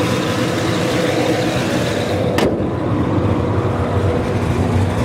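Big-block 454 V8 of a 1970 Chevelle SS idling steadily through headers and a 3-inch dual exhaust, with a single sharp click about two and a half seconds in.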